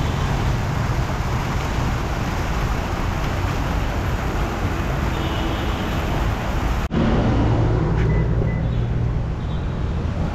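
Outdoor fountain's water jets splashing into the pool as a steady rush, which cuts off abruptly about seven seconds in. A low steady hum with a couple of faint clicks follows.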